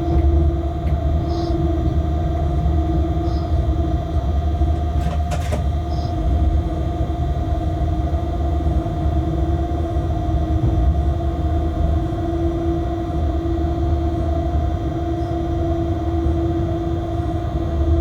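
Freight locomotive heard from inside its cab while running: a steady low rumble with a constant hum, and one brief click about five seconds in.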